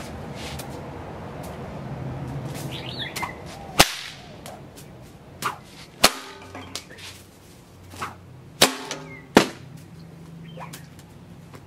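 Homemade 5.5-foot paracord bullwhip cracking: four sharp, loud cracks, the first about four seconds in and the last two less than a second apart, with softer snaps in between.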